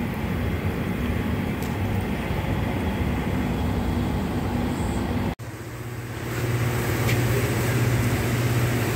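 Steady mechanical rumble and hum of running machinery, broken by a brief dropout a little over halfway through, after which a steadier low hum continues.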